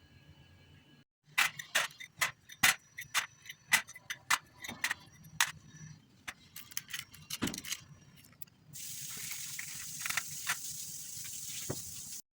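Kitchen utensils clinking and tapping against a bowl, a dozen or more sharp knocks over about six seconds. Then comes a steady high hiss for about three seconds, which cuts off suddenly.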